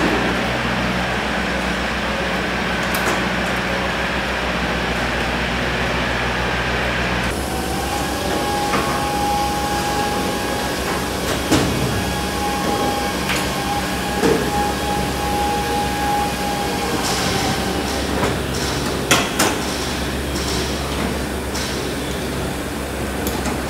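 Steady machinery hum of a workshop. A steady whine runs through the middle stretch, and a few light metallic clicks come from hand tools working on aluminium aircraft skin.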